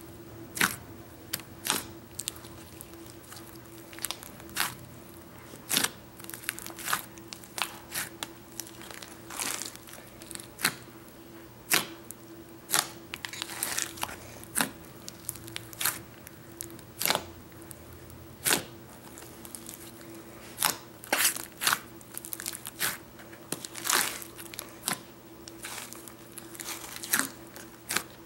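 A large batch of mixed, activated slime worked by hand, giving irregular sharp clicks and pops about one or two a second.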